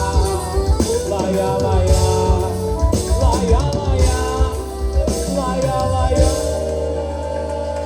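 Live forró band playing the instrumental close of a song, with drums and bass keeping the beat. About six seconds in the beat stops and a held chord rings on.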